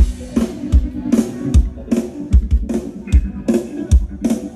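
Live band music played loud through a PA sound system: a steady drum-kit beat of kick and snare hits, about two to three a second, with bass and guitar.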